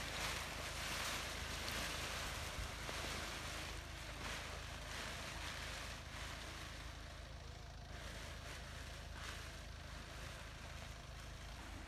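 Wind buffeting the microphone, a steady low rumble and hiss, with brief swishing rustles of a paraglider's nylon wing as it is pulled out and spread on the ground.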